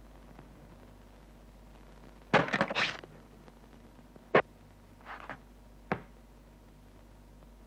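Cartoon sound effects with no music: a quick loud flurry of scuffling knocks, then a few single sharp knocks and a brief rustle.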